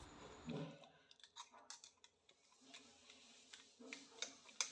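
Faint clicks and light scraping from a small steel mixer-grinder jar as ground masala paste is scraped out of it onto raw chicken pieces, with a sharper click near the end.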